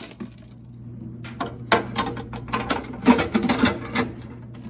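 Clusters of sharp metallic clinks and rattles of small metal objects being handled, over a steady low machine hum.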